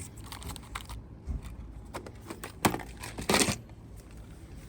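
Small metal badges and insignia being handled, clicking and tapping against each other and the table, with one sharper click past halfway and a brief scrape soon after.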